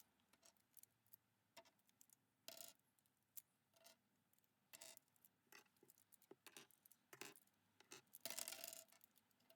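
Faint, scattered small clicks of plastic cube pieces being pried out and set down, about one every second, with a busier patch of clicking near the end.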